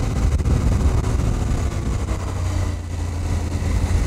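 KTM 790 Adventure's parallel-twin engine running steadily as the motorcycle rides along, its low hum holding an even pitch.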